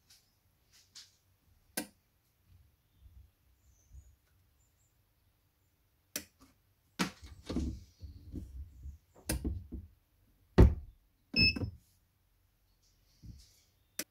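Mug heat press being loaded with a glass and clamped shut: a series of knocks and clunks from its metal frame and clamp lever. The loudest clunk comes about ten and a half seconds in, followed by a brief ring.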